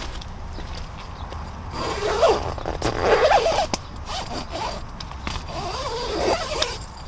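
A zipper being pulled in two long rasping strokes, the first about two seconds in and the second about five seconds in.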